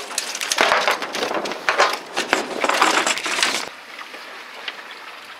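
Landing net holding a freshly caught yellowtail (warasa) hauled aboard a boat: the net and the thrashing fish rustle, scrape and knock against the rail and deck in a rapid jumble of noises. It cuts off abruptly about three and a half seconds in, leaving only faint wind and water.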